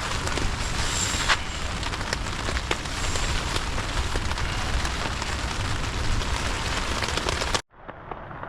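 Steady rain, with many sharp ticks of drops striking a surface close by; it cuts off abruptly near the end.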